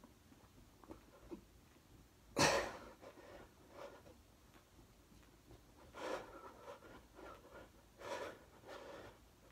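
Hard breathing of a man doing push-ups: several sharp, noisy exhales, the loudest about two and a half seconds in, with more near the end. It is the laboured breathing of someone deep into a set of well over a hundred push-ups.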